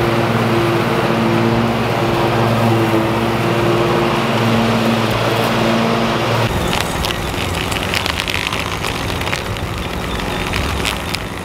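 John Deere zero-turn riding mower running steadily with its blades cutting dry grass: a steady engine hum over a rushing noise. About six and a half seconds in the hum drops back and a rougher noise with scattered sharp ticks takes over.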